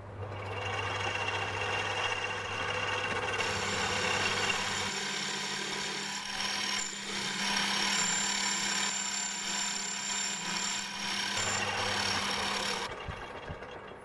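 Small bench metal lathe running, with the tool taking a boring cut to open the bore of an aluminium part to size. A steady motor hum starts it off, and a louder, hissier cutting sound with a faint high whine joins a few seconds in. It all stops about a second before the end.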